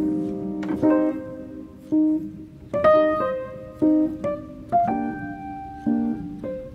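Soft piano music: a slow melody of notes and chords struck about once a second, each ringing out and fading.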